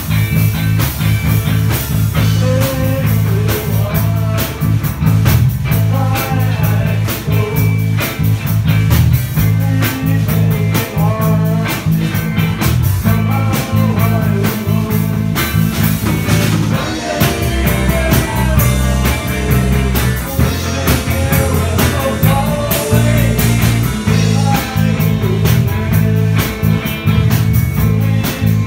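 A rock band playing live: a strummed electric guitar close by, bass and drums, with a man singing into a microphone.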